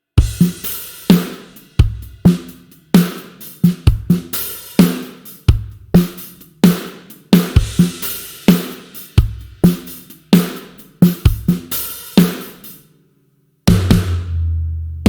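Sampled rock drum kit from the GetGood Drums 'One Kit Wonder Aggressive Rock' Kontakt library playing a steady beat of kick, snare and cymbals. The beat stops about thirteen seconds in, and after a brief pause a loud crash hit rings out near the end.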